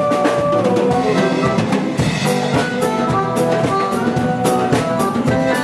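Band playing an instrumental passage of an axé carnival song, with no vocals: drum kit and percussion in a busy, driving rhythm under held melody notes.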